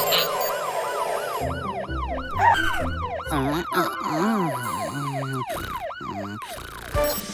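A cartoon siren wailing in quick up-and-down sweeps, a few times a second. Low sliding sound effects are heard partway through, and the siren stops near the end.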